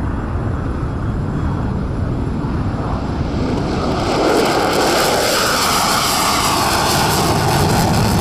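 F-35 fighter jet's Pratt & Whitney F135 turbofan engine at takeoff thrust as the jet lifts off and climbs past close by. The sound grows louder and brighter about four seconds in as the jet passes nearest.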